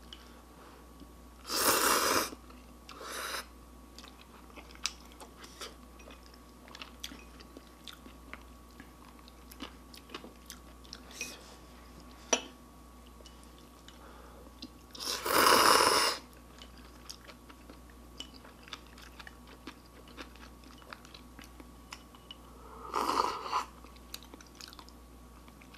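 A person slurping instant ramyun noodles: three loud slurps, the middle one the longest, with soft chewing and small mouth clicks in between.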